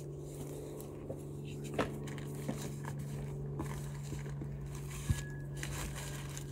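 Cardboard box being handled as the packed inflatable kayak is worked out of it: a few scattered knocks and rustles, the sharpest about five seconds in, over a steady low hum.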